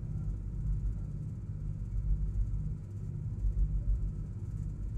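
Steady low rumble of a Russian-built hydrofoil under way, heard inside its passenger cabin, with a slight regular pulsing in the drone.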